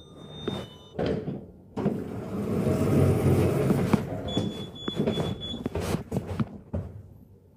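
Lift's sliding stainless-steel doors closing: a rumbling slide with clicks and knocks, followed by a thin, high steady tone lasting about a second and a half.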